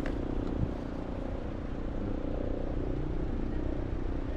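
Vehicle engine running steadily while driving along a road, with road and wind noise on the microphone.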